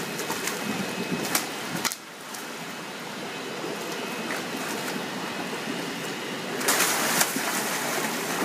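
Water splashing and churning in a shallow tiled holding pool as large fish thrash and are hauled out by hand. The sound drops suddenly about two seconds in, then grows louder near the end with sharper splashes and knocks.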